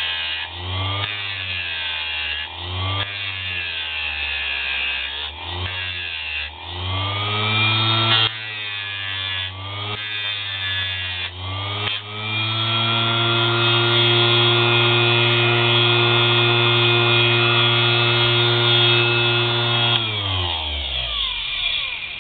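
Homemade mini grinder's small electric motor spinning a thin cut-off disc against plexiglass, its pitch sagging and recovering again and again as the disc is pressed into the plastic and eased off. It then runs steady and unloaded for several seconds before winding down, its pitch falling, near the end.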